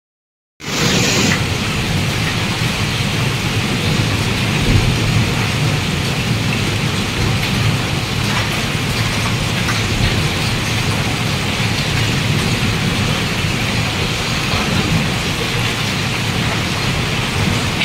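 Hailstorm: hail and rain pelting down in a loud, steady rush that starts suddenly about half a second in.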